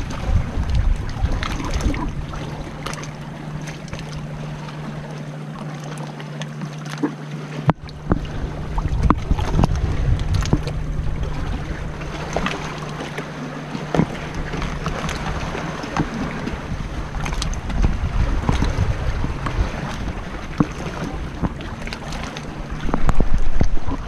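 Sea water slapping and splashing against rock and an inflatable kayak's hull, with scattered splashes from paddle strokes. Wind rumbles on the microphone throughout, and the water and wind grow loudest near the end.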